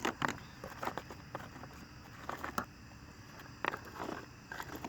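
A loose chainsaw chain clinking and rattling in irregular clicks as its links are handled and shaken, the chain having tangled into a knot.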